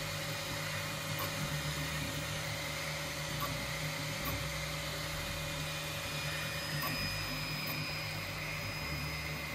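TwoTrees SK1 CoreXY 3D printer running a print: a steady whir from its fans and stepper motors. The low motor hum shifts in pitch every few seconds as the print head changes moves.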